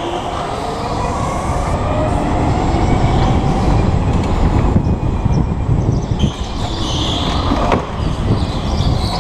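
Go-kart driven hard through corners, its motor pitch rising and falling, under a heavy low rumble of wind buffeting the helmet-mounted microphone.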